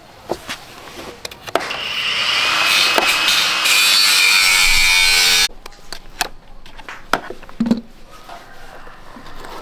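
A workshop power tool runs loudly with a harsh rasping hiss for about four seconds, building up from about two seconds in and cutting off suddenly. Scattered clicks and knocks of tools being handled come before and after it.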